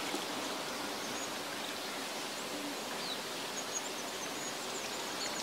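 Steady outdoor background hiss, with a few faint bird chirps in the second half.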